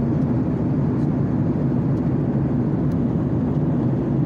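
Steady, low-pitched cabin noise of a jet airliner in cruise flight, heard from a window seat inside the cabin.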